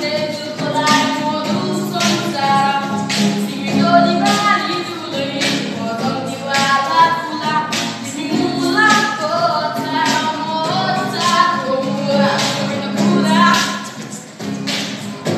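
Vocal beatboxing, with kick, snare and hi-hat sounds made by mouth keeping a steady beat, under a boy's singing voice carrying a melody. The beat and singing drop back briefly near the end.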